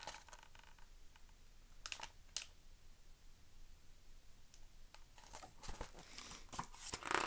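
Hardcover picture book being handled: two sharp taps about two seconds in, then paper rustling and crinkling as a page is turned near the end.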